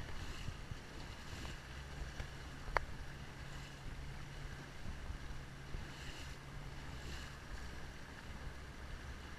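Outboard engine of a catamaran bay boat running at slow speed: a steady low hum under a haze of wind and water noise as the hull moves through choppy water. A sharp tick right at the start and another about three seconds in.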